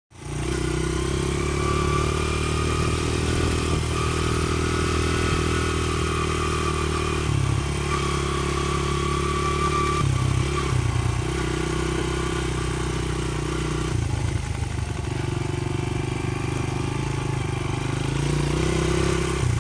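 Small dirt bike engine running under way, steady throttle with shifts in engine note several times as it speeds up and eases off.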